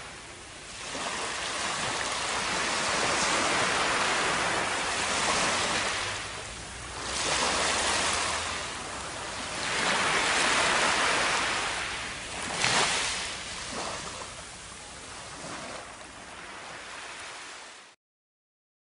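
Surf washing up a sandy beach: a steady rush of waves that swells and falls back every few seconds, then cuts off suddenly near the end.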